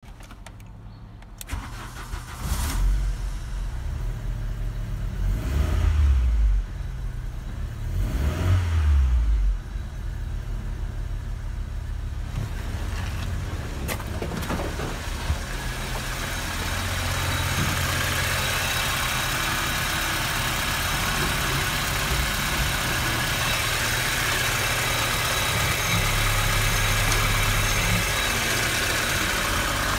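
VW Passat B4's 1.6-litre AEK four-cylinder petrol engine starting about a second and a half in. It is revved three times, then settles to a steady idle, heard up close at the open engine bay in the second half.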